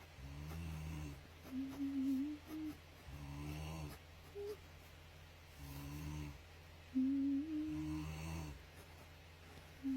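Snoring: low rattling breaths alternate with higher, wavering whining tones, one cycle every few seconds.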